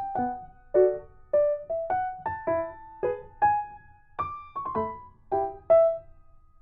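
Background music: a light keyboard melody of struck notes, about two a second, each dying away.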